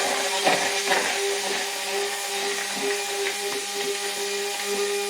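Electric hand blender running steadily with a motor whine, emulsifying milk and sunflower oil into alioli.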